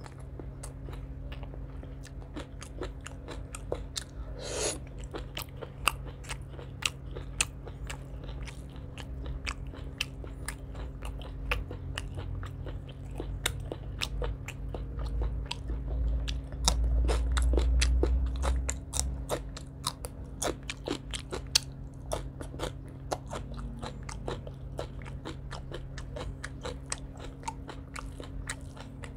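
Close-miked eating: a man crunches and chews mouthfuls of chicken gizzard curry with rice and raw water spinach stalks, with many sharp wet mouth clicks several times a second. A louder low rumble comes in for a couple of seconds about two thirds of the way through, over a steady low hum.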